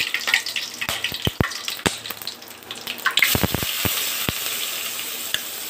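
Whole spices popping and crackling in hot oil in an aluminium kadai, then about three seconds in chopped onions go into the oil and it breaks into a steady, loud sizzle with a few more pops.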